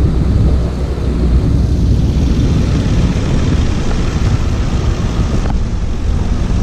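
A boat engine running steadily, heard as a low rumble.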